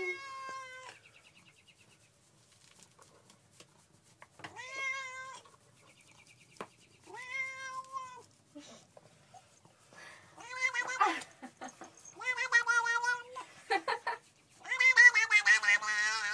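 Tabby cat meowing over and over: about six long, drawn-out calls a few seconds apart, growing louder, the last the longest with a wavering pitch.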